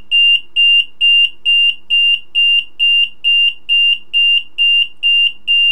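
Sencore LC102 capacitor-inductor analyzer's internal beeper sounding a high, steady-pitched beep that repeats a little over twice a second. It is the analyzer's warning of voltage still left on the test leads, which the owner puts down to a bad connection at the relay or the resistor that should discharge them.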